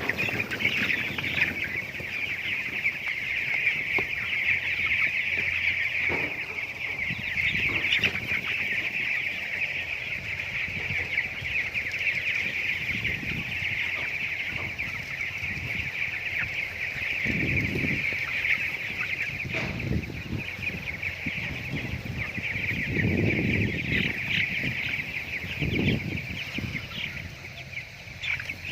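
A flock of broiler chickens cheeping and clucking continuously, a dense high-pitched chorus of many birds. A few dull low knocks or rustles come in the second half.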